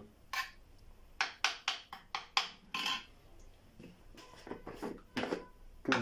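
Metal spoon scraping and tapping against a clay dish while stirring a dry, crumbly egg-food mix of egg, breadcrumbs and couscous: a quick run of about eight strokes in the first three seconds, then three more near the end.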